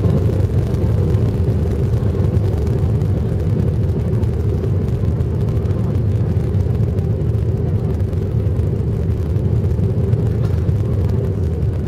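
Steady low rumble of an airliner's engines and airflow heard inside the passenger cabin during the landing.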